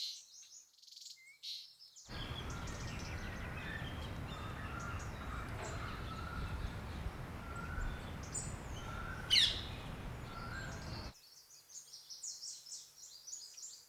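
Birds chirping and twittering in quick high calls. For most of the middle a steady rushing background noise runs under them, with a sharp rising whistle about nine seconds in. Near the end the noise drops away and only the birds' chirps remain.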